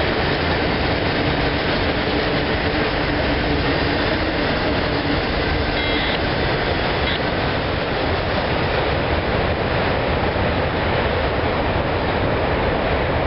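Cars of a CSX freight train rolling past: a steady, loud noise of steel wheels running on the rails.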